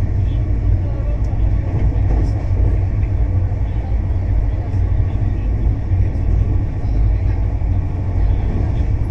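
Rajdhani Express passenger train running at high speed, heard from inside the coach: a loud, steady, deep rumble that holds without a break.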